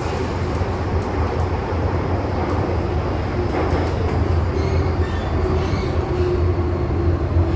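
MTR M-train electric multiple unit running, heard from inside the passenger car: a steady low rumble from the wheels and running gear. A faint steady tone joins it about halfway through.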